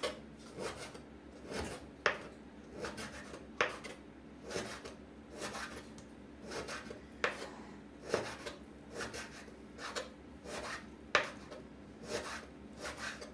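Chef's knife slicing raw pork belly on a bamboo cutting board: soft slicing strokes one or two a second, with a sharper knock of the blade on the board now and then.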